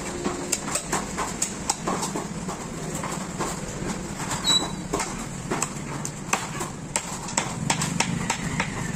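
A heavy knife chopping a large fish into pieces on a wooden log block: a run of sharp knocks, about two a second, over a steady low hum.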